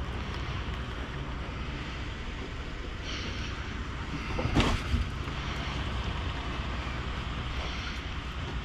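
Rummaging in a dumpster through cardboard boxes and bagged trash, with one brief rustle of cardboard and plastic about halfway through. A steady low rumble runs underneath.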